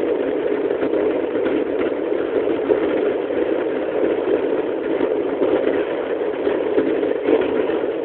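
Steady roar of a Boeing 737-900's CFM56 jet engines and airflow heard inside the passenger cabin as the airliner climbs after takeoff.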